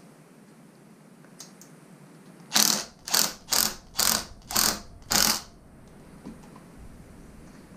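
Cordless power driver running in six short bursts, tightening a hose clamp screw to hold a pedal assist sensor at the bottom bracket.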